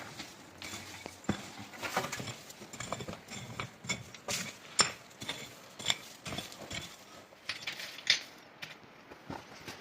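Irregular knocks and clinks of hard objects being handled and set down, a few sharp strikes a second with short gaps between.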